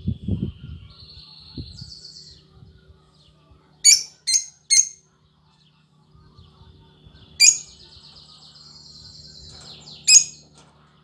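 Lovebird chirping: a wavering chatter, then three sharp, shrill chirps in quick succession about four seconds in, and another chatter from about seven seconds, with sharp chirps starting and ending it. A few low knocks or rustles in the first two seconds.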